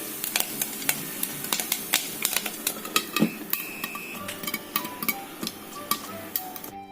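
Jowar (sorghum) grains popping in a hot oiled pan under a partly open lid: irregular sharp pops, several a second, over a sizzling hiss that drops away near the end.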